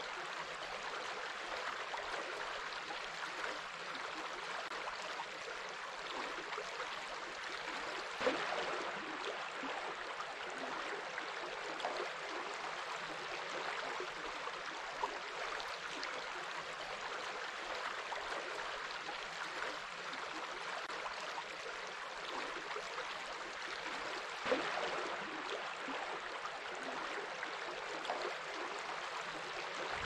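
River water flowing and lapping close by: a steady watery hiss with small splashes and gurgles, two of them a little louder, about a third of the way in and again near the end.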